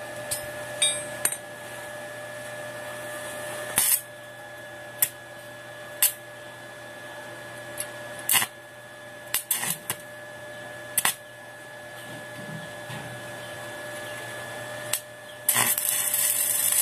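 Scattered sharp metal knocks as steel parts of a motorcycle swing arm are tapped and fitted together, over a steady hum. About a second before the end, a stick-welding arc strikes and crackles steadily.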